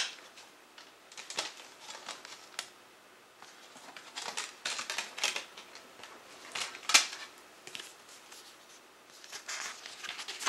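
A CD's packaging and paper booklet being handled: scattered clicks, taps and papery rustles in short bursts, the sharpest click about seven seconds in.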